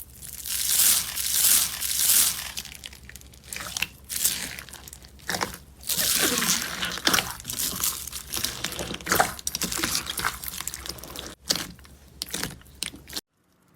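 Crunchy slime being handled by hand, crackling and crunching in irregular bursts with short pauses between them.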